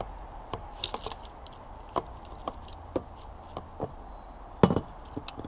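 Light clicks and knocks of the air cleaner cover and filter element being handled and taken off a small 168F diesel engine, with a louder short clatter near the end.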